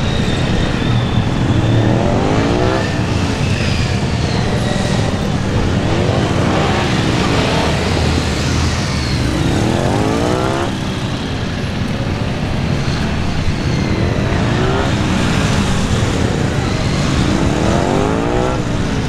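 Triumph Street Triple R's inline-three engine revving up and dropping back, about six times, as the motorcycle accelerates hard and slows again between turns on a practice course.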